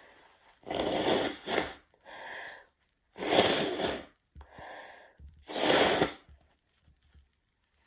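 A person blowing a congested nose, three long, forceful blows with quick breaths in between.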